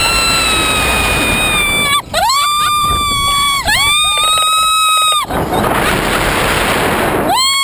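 Slingshot-ride riders screaming: long, very high held screams, the first slowly falling in pitch, then two held screams of about a second and a half each. A rushing noise follows, and another held scream comes near the end.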